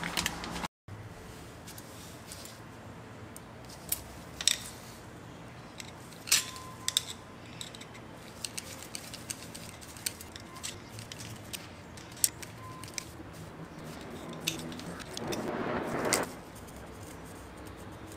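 Small metallic clicks and ticks of a stainless steel worm-drive hose clamp being handled and tightened with a flathead screwdriver, with about a second of scratchy rustling near the end.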